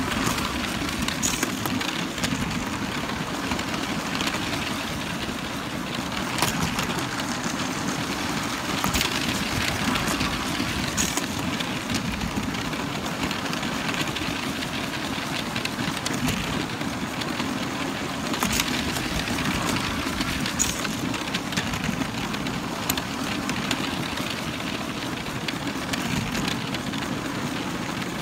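Lego train's small electric motor whirring steadily as the train runs along plastic Lego track, with the wheels rattling and a few short clicks along the way.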